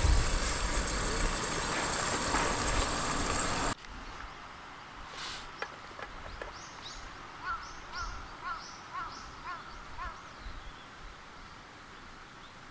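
Roast beef sizzling in a lidded frying pan, cut off abruptly a few seconds in. After that, faint outdoor ambience with a small bird chirping about twice a second for a few seconds.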